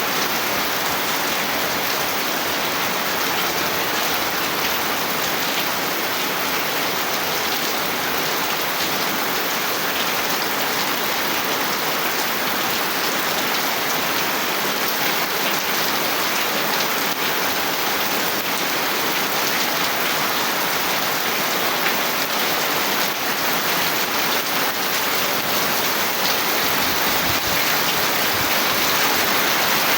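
Steady rain falling, a dense, even hiss of many drops, slightly louder near the end.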